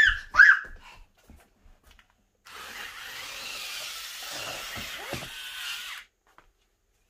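Toy RC stunt car's small electric drive motors and plastic gears whirring steadily as it drives, starting a couple of seconds in and cutting off suddenly after about three and a half seconds.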